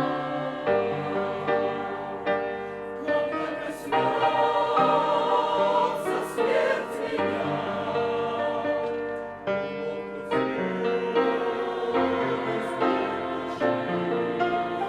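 Mixed church choir singing a hymn in several parts, in Russian, with sustained chords that move from note to note.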